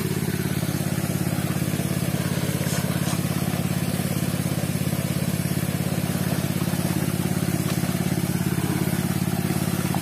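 Small Robin petrol engine running steadily at a constant speed with a fast, even pulse, driving a water pump.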